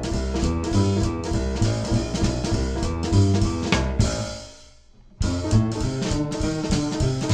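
Upbeat theme music with a drum kit and guitar playing a steady beat. About four seconds in, it fades away to a near stop and kicks back in suddenly a second later.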